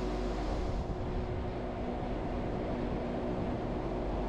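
Wengernalpbahn electric rack-railway train running, a steady rumble and hum heard from on board.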